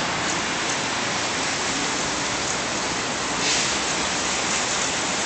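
Steady hiss of wet snow and rain falling on wet pavement, with a slight swell about three and a half seconds in.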